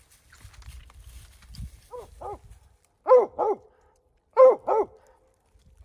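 Mountain cur treeing a squirrel: it barks at the base of a tree in quick pairs, three double barks about a second apart, the first pair fainter. Before the barking, the dog runs through dry leaves, rustling.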